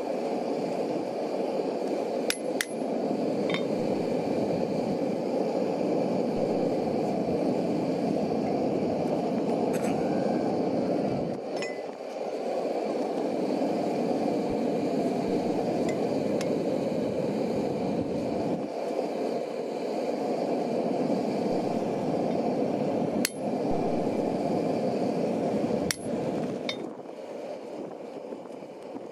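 A handful of sharp hammer blows on a steel punch held against the workpiece on the anvil, scattered a few seconds apart in small clusters, some with a brief metallic ring. A steady rushing noise runs underneath throughout.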